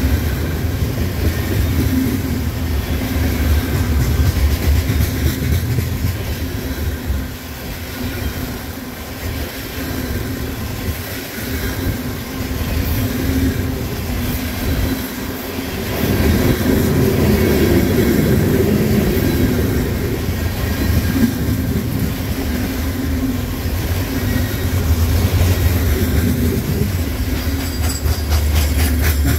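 Loaded grain hopper cars of a freight train rolling past close by: a steady rumble of steel wheels on the rails with a clickety-clack of wheels over the track. It eases a little in the middle, then swells again from about halfway.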